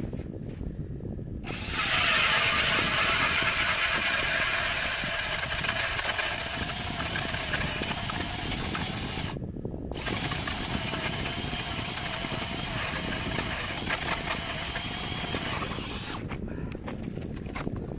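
Cordless drill spinning an ice auger, boring a hole through lake ice: a steady motor whine that starts about a second and a half in, stops briefly about halfway, then runs again until a couple of seconds before the end.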